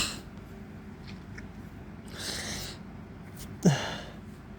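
A man sneezes once, sharp and loud, about three and a half seconds in, after a hissing intake of breath about two seconds in. An allergy sneeze, brought on by spring pollen and heavy post-workout breathing.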